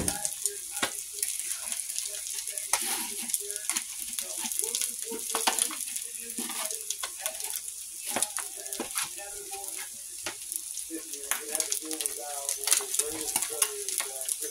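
Fried eggs sizzling and crackling in bacon grease in a cast iron skillet, with a steady hiss and frequent sharp pops, the burner under it just switched off.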